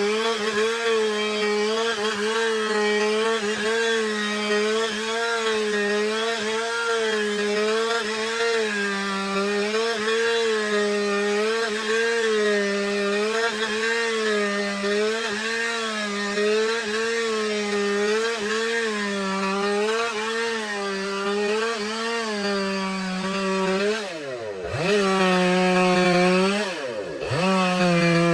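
Stihl chainsaw cutting a log lengthwise into planks at full throttle, the engine pitch wavering about once a second as the bar works through the wood. Near the end the throttle is let off twice, the engine dropping toward idle and revving back up each time.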